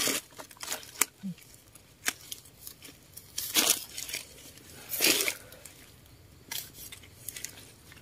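Rustling and crackling of forest leaf litter and undergrowth, in irregular bursts, the loudest about three and a half and five seconds in.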